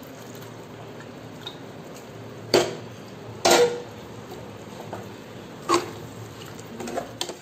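Metal cookware clanking: an aluminium pressure cooker knocking against a saucepan as the last of the beef stock is poured, and a steel ladle striking the pan. There are three sharp clanks, the second ringing briefly, then lighter clinks of the ladle stirring thick beef masala near the end.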